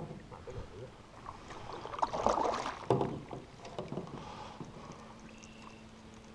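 Knocks and clatter inside an aluminium canoe, with water sloshing against the hull. The loudest moments are a noisy rattle about two seconds in and a sharp knock about a second later.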